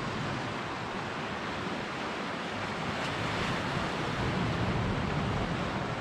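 Strong gusty wind blowing over the microphone, mixed with sea surf washing on the shore: a steady rushing noise that swells a little about two-thirds of the way through.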